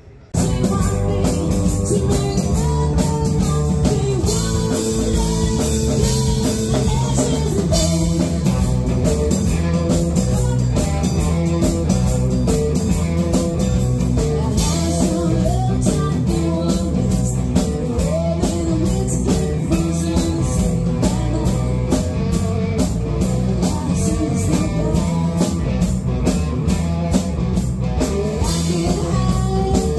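Live rock band playing: electric guitars and a drum kit with a woman singing. The music cuts in suddenly about half a second in and runs at a steady loud level.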